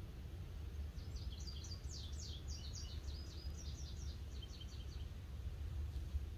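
A small songbird sings a high, rapid series of short falling notes for about four seconds, starting about a second in, over a steady low rumble.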